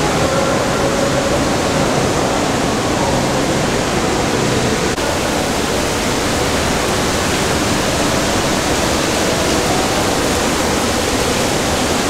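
Indoor fountain's water splashing and falling, a steady loud rushing noise.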